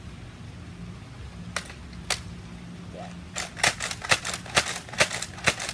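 Nerf Doominator dart blaster slam-firing: sharp plastic clicks of the pump stroke and the shots. Two single shots come about half a second apart, then from about three and a half seconds a fast run of several clicks a second, some in close pairs.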